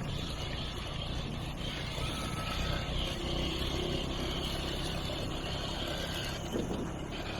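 Motorbike engine running steadily while riding along a road, with an even rush of road noise.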